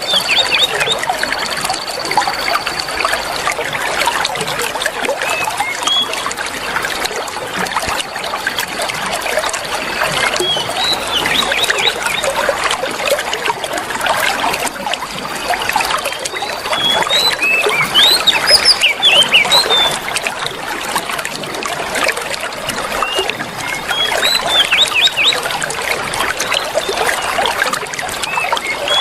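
Trickling water with many short, quick songbird chirps and whistles over it, and a steady high thin whistling tone that comes and goes in the first half.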